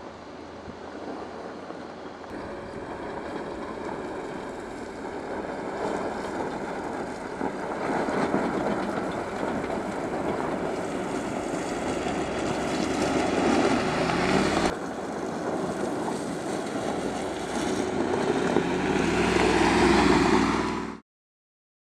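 Mercedes-Benz G-Class SUV driving down a steep loose-gravel slope, engine running and tyres crunching over the stones. The sound grows gradually louder, breaks off briefly about two thirds of the way in, rises again with a climbing pitch, and cuts off suddenly near the end.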